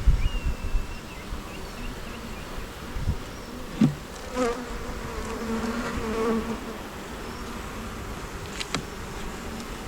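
Honey bees buzzing around an open hive, with one bee humming close to the microphone for a couple of seconds midway. A few light knocks.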